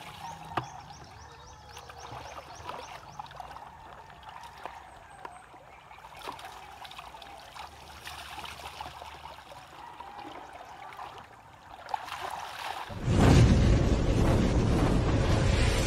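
Water splashing and pouring over a motorcycle as it is washed with water scooped and poured from a bucket, with a faint trickle of the stream. About thirteen seconds in, a sudden loud rushing sound effect takes over.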